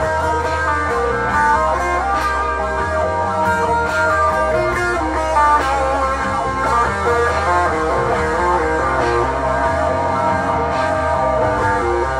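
Layered electric guitar loops from a Stratocaster-style guitar through an amplifier: a steady repeating low line under picked melodic notes.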